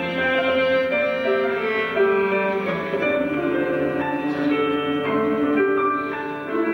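Live show-choir music: a run of sustained notes that move step by step, with bowed strings including a cello.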